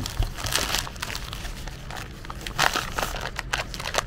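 Grey plastic mailer bag crinkling and rustling in irregular bursts as hands pull it open.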